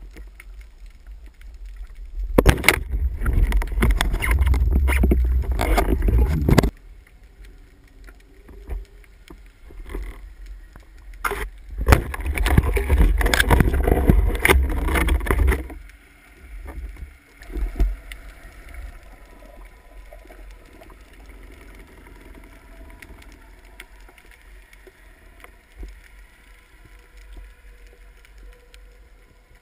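Loud rubbing, knocking and water rush against an underwater camera housing as a spearfisher handles and arms the speargun, stretching its rubber band, in two stretches of about four seconds each. Between them and after, only the quiet steady hiss of the sea.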